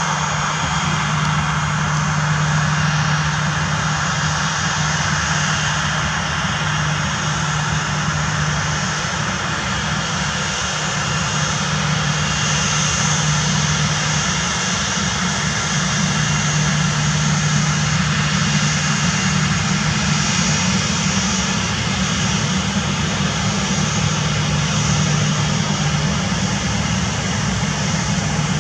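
Boeing 737-800's CFM56-7B jet engines running steadily at low thrust as the airliner taxis, a steady whine over a low hum.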